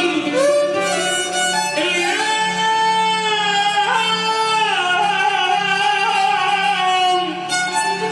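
Music of an Iraqi sad song: a melody of long, sliding held notes with bowed strings, over a steady repeating low pulse.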